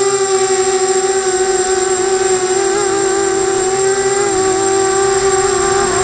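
Electric motors and propellers of a 250-size FPV quadcopter whining steadily in flight, the pitch wavering with throttle and dipping briefly about four seconds in. A thin, steady high-pitched whine sits above it.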